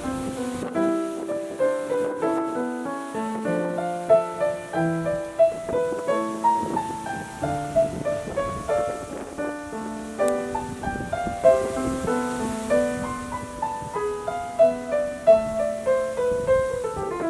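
Piano music: a melody of many short notes over a moving lower line, played steadily.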